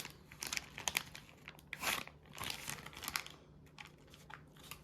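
Toy kit packaging being worked open by hand: faint, irregular crinkling and crackling with small clicks.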